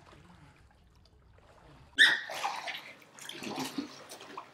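Pool water splashing and sloshing as a dog swims and scrambles out of the pool; faint for the first two seconds, then a sudden loud splash and continued splashing.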